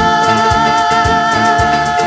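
Spanish-language Christian worship music in a Latin style: one long held note over a steady percussion beat.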